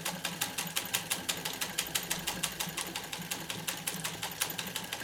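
Soviet Podolsk PMZ-1A sewing machine stitching through thick stretch denim, clicking evenly at about seven or eight stitches a second.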